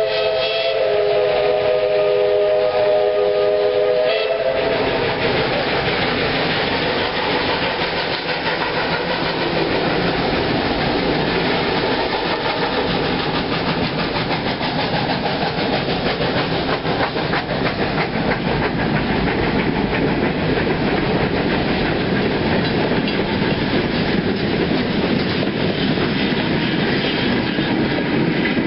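A steam locomotive's whistle sounds a held chord of several notes and cuts off about four seconds in. Then the train runs past with a steady rush of noise, its wheels clicking over the rail joints.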